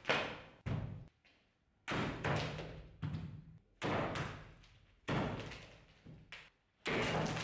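Bardiche axe blade chopping through heads of cabbage into a wooden stump: a string of sudden heavy chops, roughly one a second, each fading quickly.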